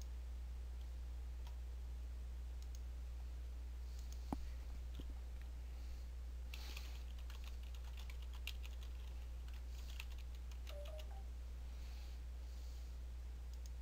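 Computer keyboard typing in short bursts of faint key clicks, mostly in the second half, with a single sharper click about four seconds in, over a steady low electrical hum.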